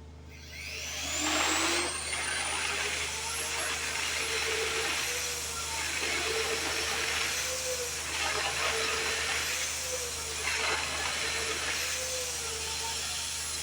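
Evolution magnetic drill starting up, its motor whine rising quickly to a high steady pitch, then running under load while drilling steel, with a swell of cutting noise about every two seconds.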